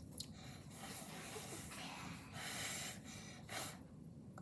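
A person blowing on hot food to cool it before tasting: several breathy blows, a longer stronger one a little past halfway and a short puff near the end.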